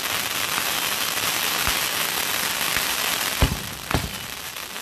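Consumer fireworks: a steady dense hiss, then two sharp launch thumps about half a second apart, about three and a half seconds in, as shells lift off.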